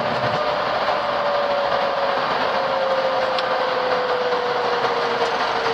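Flight-deck noise of a Boeing 737 MAX accelerating down the runway at takeoff thrust just past V1: a steady rush of airflow, engine and runway rolling noise, with a faint tone that slowly falls in pitch.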